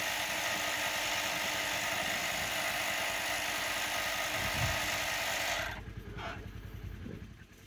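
Portable electric tire inflator running steadily with a fast, fine pulsing hiss as it pumps up a flat pickup tire, then shutting off abruptly a little over five seconds in.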